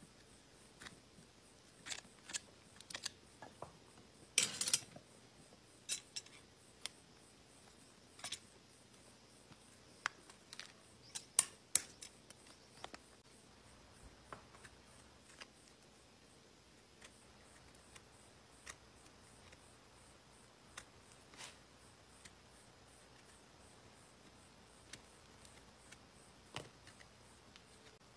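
A hoof knife paring horn from a horse's hoof sole and frog: scattered short, sharp slicing scrapes. They come thicker and louder in the first half and grow sparse later.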